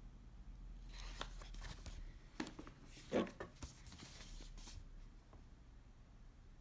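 Faint rustling and crinkling of large paper game map sheets being handled and moved, with one louder crinkle about three seconds in.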